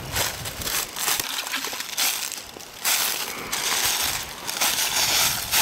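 Footsteps crunching and rustling through dry fallen leaves and twigs, a step roughly every second.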